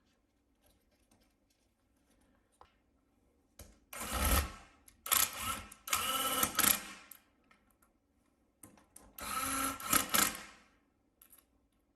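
Small electric screwdriver motor whirring in four short bursts as it drives screws into a laptop during reassembly. The bursts come about four, five and six seconds in, then a longer one near ten seconds, with faint clicks between them.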